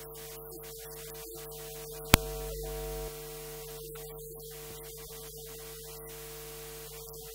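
Steady electrical hum and hiss from the conference sound system, with a single sharp click about two seconds in, followed by about a second of low rumble.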